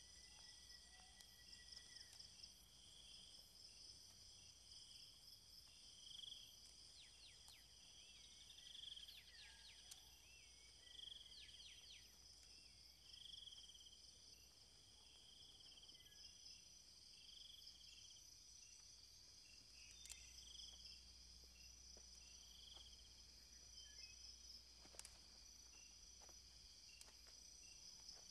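Faint night chorus of crickets and other insects: steady high trills with a pulsing chirp every second or two, and a few short gliding calls near the middle.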